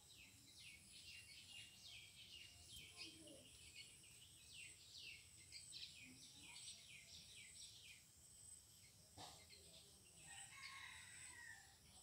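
Faint background birdsong: small birds chirping in many quick, downward-sweeping notes, with a distant rooster crowing once about ten seconds in.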